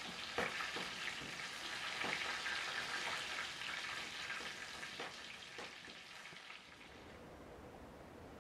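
Food sizzling as it fries in a pan on a stovetop, with scattered light knocks of a utensil against the pan; the sizzle eases off near the end.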